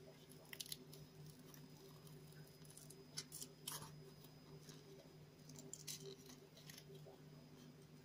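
Faint handling of thin card: a few scattered small clicks and creases as a cardboard puzzle piece is bent in half between the fingers, over a low steady electrical hum.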